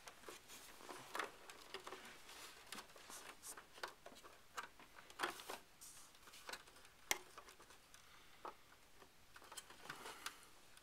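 Faint, scattered clicks and rustles of hands handling cables and pushing the power supply's plastic connectors back into their sockets inside a Power Mac G5.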